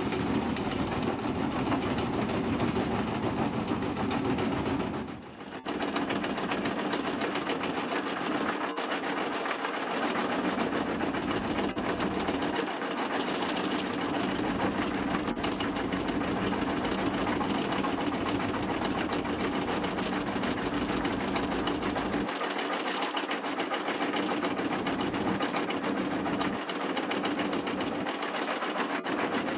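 Xcentric XC29 crushing bucket on an excavator running steadily, its eccentric jaw crushing rock as crushed gravel pours out, with the excavator's engine running underneath. The noise briefly drops about five seconds in.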